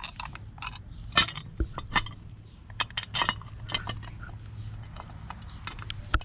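Irregular light metallic clinks and knocks as a motorcycle chain cover and its bolts are handled and fitted, over a steady low hum.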